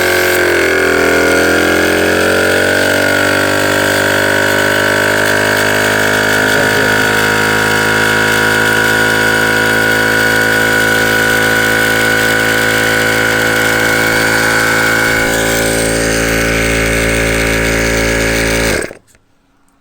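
12 V twin-piston car tyre compressor, its cracked plastic connecting rod repaired with cold weld, running loud and steady as it pumps up pressure against a closed nipple. Its pitch sinks and settles in the first couple of seconds, a lower rumble grows near the end, and it cuts off suddenly when switched off.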